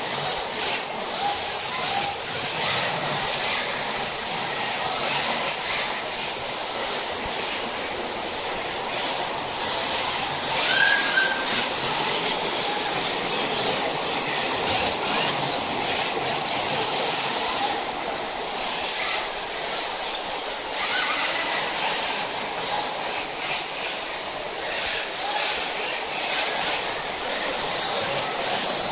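Several rear-wheel-drive RC drift cars sliding around the track together: a steady high hiss and scrape of hard drift tyres skating sideways on the smooth floor.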